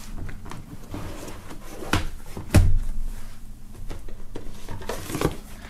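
Plastic DVD cases and a cardboard box being handled, with rustling and three sharp knocks, the loudest about two and a half seconds in.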